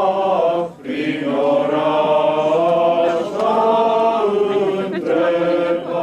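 A choir singing a slow chant in long held notes. The phrases break off briefly just under a second in and again past three seconds.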